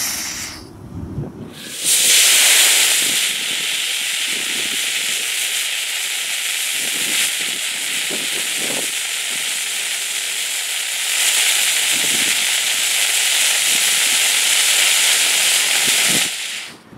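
Homemade potassium nitrate–sugar rocket motor burning on a static test stand with a loud, steady hiss. The hiss drops out briefly about a second in and stops sharply near the end. The burn is long and weak, which the maker puts down to a core hole drilled too shallow, so the fuel burns end to end like a fuse.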